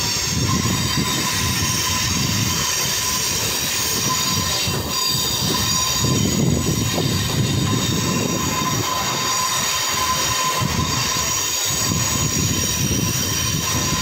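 Mumbai suburban electric local train running at speed, heard from aboard the coach by its window: a steady rumble of wheels on rail with a continuous thin high tone over it.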